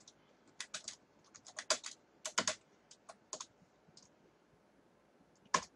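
Computer keyboard typing: quick bursts of keystrokes, then one louder single click near the end.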